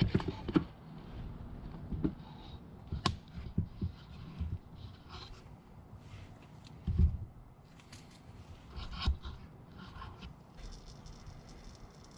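Light scrapes and knocks of hands and tools working under the vehicle at the oil drain bucket, with a louder thump about seven seconds in and another about nine seconds in.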